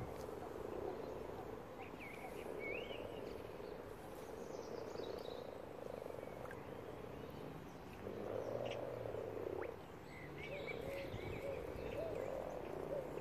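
A chorus of many common frogs (Rana temporaria) croaking together, a continuous low croaking from a crowd of males calling at a spawning gathering. It swells louder for a couple of seconds a little past the middle.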